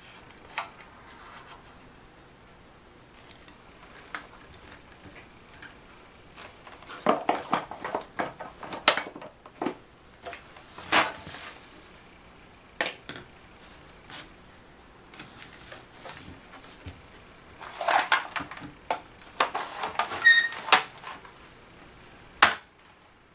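Parts of a National MC-701C vacuum cleaner being handled before it is switched on: scattered clicks, knocks and clatters of plastic fittings, bunched in two flurries, with a brief ringing tone about twenty seconds in.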